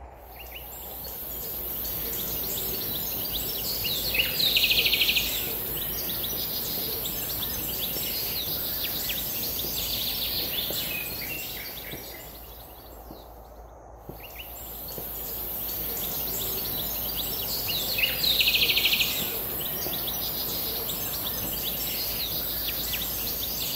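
Birds chirping over a steady high insect buzz, with a louder rapid trill about four seconds in. The passage fades out about halfway through and then starts again, the same trill coming back near the end.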